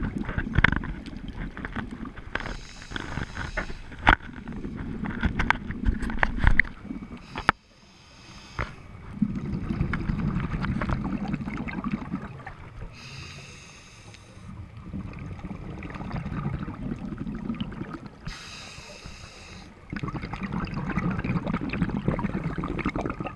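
Scuba diver's regulator breathing heard through an underwater camera housing: a low rumble of exhaled bubbles alternating with a short hiss, repeating about every five seconds. A few sharp knocks sound in the first seven seconds.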